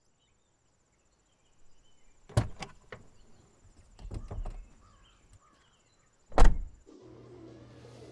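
A car door being unlatched and opened with a sharp click, some low thuds and shuffling as someone climbs out, then the door shut hard near the end; the shutting is the loudest sound.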